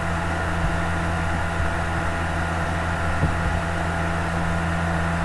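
Steady low electrical hum with hiss, the constant background noise of the narration recording, running on without change.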